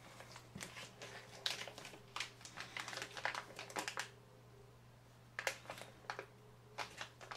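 Plastic vacuum-sealer bag being handled and crinkled in irregular bursts of short rustles and clicks, a pause in the middle.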